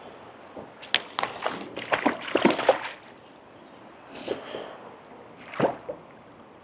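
Hooked trout splashing and thrashing at the water's surface as it is played to the net: a cluster of splashes about a second in lasting nearly two seconds, then two shorter splashes, over the steady hiss of the flowing stream.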